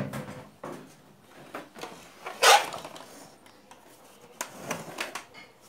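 Irregular knocks and clatters of hard plastic and metal as the opened CRT television's cabinet and chassis are handled, the loudest about two and a half seconds in.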